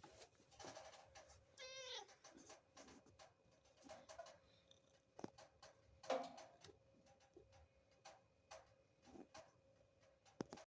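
A Munchkin cat gives a short meow that falls in pitch, about two seconds in. Faint scattered clicks run through the quiet, with a brief louder sound about six seconds in.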